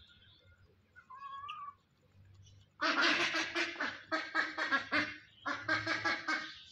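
Duck quacking in three runs of rapid quacks, each about a second long, starting nearly three seconds in, after a faint short call about a second in.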